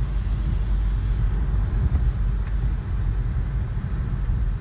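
Car cabin noise while driving on a wet road in rain: a steady low rumble of engine and tyres.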